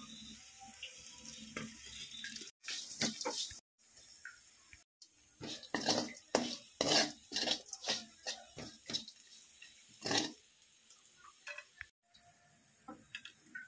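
A metal spatula scraping and knocking against a metal pan while stirring fried onions, with a dense run of sharp scrapes and clinks in the middle. A steady hiss from the frying runs underneath.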